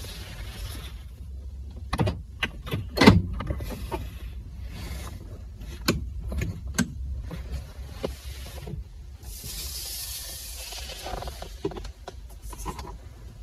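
Honda Odyssey's power windows running from the driver's door switches, with a string of sharp switch clicks, the loudest about three seconds in, and a stretch of hiss near the end of the run.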